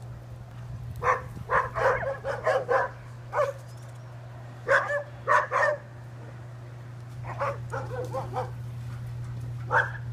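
Dogs barking in short runs of several barks each: a run about a second in, three barks about five seconds in, fainter barks near eight seconds and a single bark near the end. A steady low hum runs underneath.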